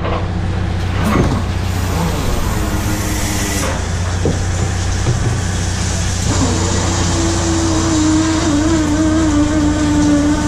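Shrimp trawler's engine and deck machinery running with a steady low hum; from about six and a half seconds a steady, slightly wavering mechanical whine joins it.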